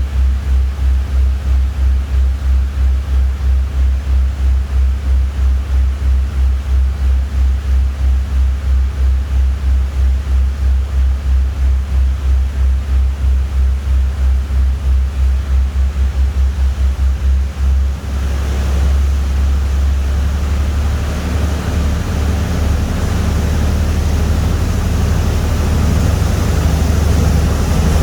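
Boat engine heard on board: a deep, even throb of about two to three beats a second that quickens and then, about eighteen seconds in, gives way to a louder, steadier rumble with a rush of water and wind.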